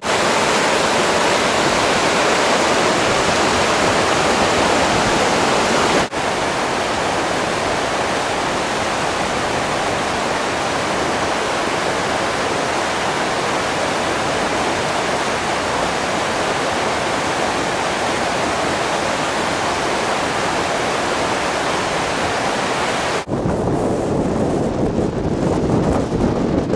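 Mountain stream rushing over boulders, a steady loud rush of water, with a brief break about six seconds in. Near the end it gives way to gusty wind buffeting the microphone.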